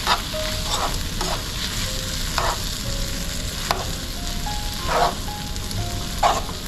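Spaghetti in vodka pasta sauce sizzling in a pan on lowered heat, stirred and tossed with a utensil that scrapes the pan every second or so.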